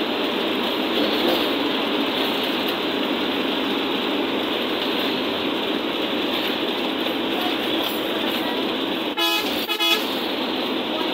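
Steady engine and road noise inside a bus cabin as the bus drives along at speed. A vehicle horn sounds twice in quick succession about nine seconds in.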